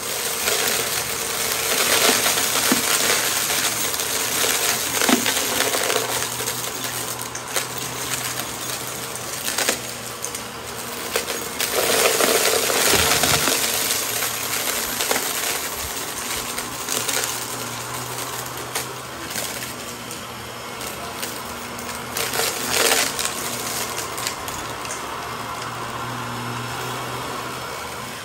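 Shark Navigator upright vacuum running over a shag rug, its motor humming steadily while it sucks up a gritty glitter-and-sequin mix that crunches and rattles up into the machine in dense, constant clicks. Louder, busier stretches come as passes go through thick debris, around 2 and 12 seconds in.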